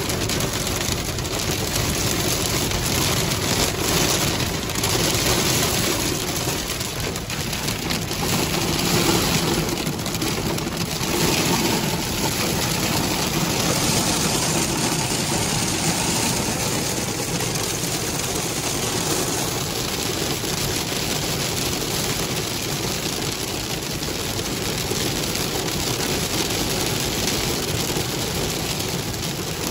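Heavy rain and hail pelting a car's roof and windshield, heard from inside the cabin as a dense, steady patter of small hits, with the car's road and engine noise underneath.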